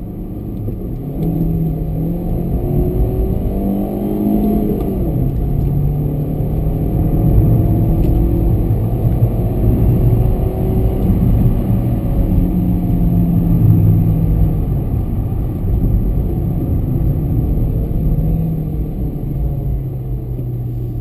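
A Volkswagen Fox 1.0 four-cylinder engine pulling hard under full acceleration. Its pitch climbs through each gear and drops back at each upshift, then eases off near the end.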